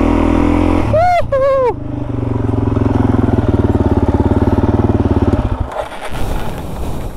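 Dirt bike engine running at low revs with an even pulse, then cutting out abruptly about five and a half seconds in as the bike stalls in a rut. Two short, high rising-and-falling vocal cries come about a second in.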